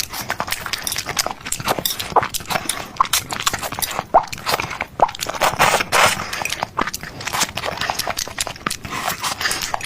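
Close-miked eating: chewing and crunching food, a dense run of irregular wet clicks and crackles.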